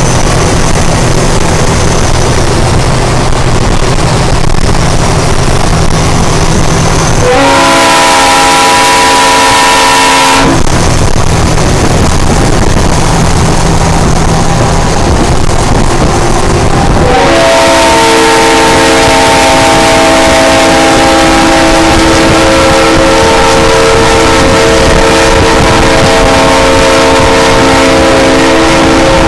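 Multi-tone air horn on a semi truck sounding a chord of several notes: one blast about seven seconds in lasting about three seconds, then a long blast from about seventeen seconds in that holds on. Between the blasts, the low steady drone of the diesel truck running at highway speed.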